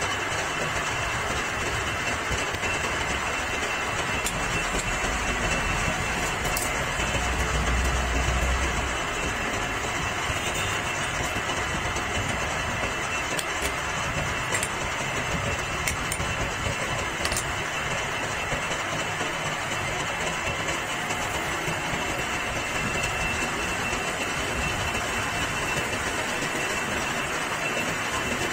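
Metal lathe running steadily, its chuck spinning while a tool bit cuts a threaded steel part, with a faint high whine. A low rumble swells about eight seconds in, and a few sharp ticks come through the first half.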